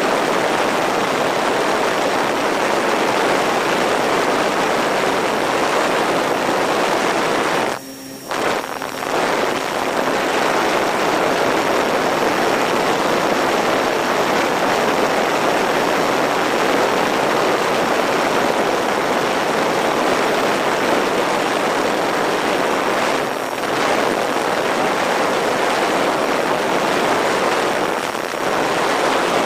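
Steady rush of airflow over an RC plane in flight, mixed with the steady run of its electric motors and propellers. The sound drops out sharply for about half a second about eight seconds in.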